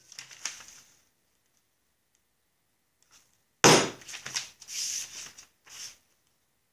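A hammer taps a homemade sharpened-pipe punch through a paper template on a wooden block, one sharp tap about three and a half seconds in. Then comes a couple of seconds of rubbing and scraping of the paper and punch.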